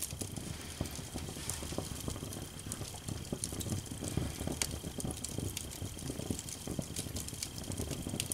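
Wood fire burning in a fireplace: irregular crackles and sharp pops over a low, steady rumble of flames.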